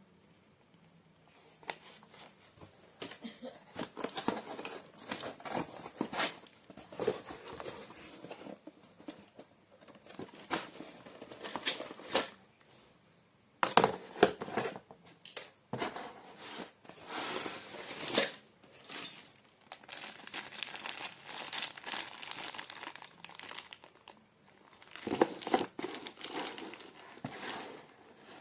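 Crinkling and rustling handling noise in irregular bursts, with short quiet gaps between them.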